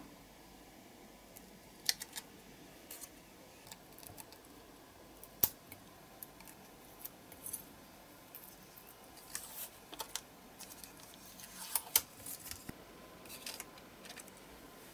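Scattered small clicks and short rustles of paper decals and fine metal tweezers being handled on a workbench, with two sharper clicks about five and twelve seconds in.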